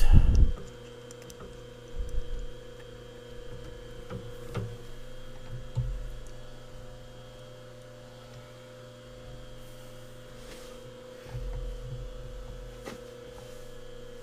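Steady electrical hum in a machine shop, with a few faint knocks and clinks of tooling being handled.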